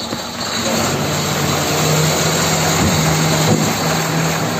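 Vehicle engine running steadily: a low, even drone that grows a little louder about a second in.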